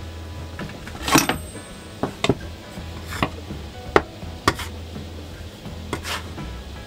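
A fork and a metal bench scraper working eggs into a mound of flour, scraping and tapping against a hard tabletop in about seven short sharp strokes, the loudest about a second in. Soft background music plays underneath.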